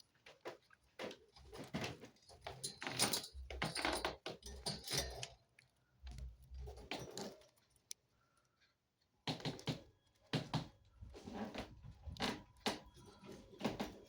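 Pet budgerigars making irregular scratchy chatter, clicks and rustles, with a quiet gap about eight seconds in.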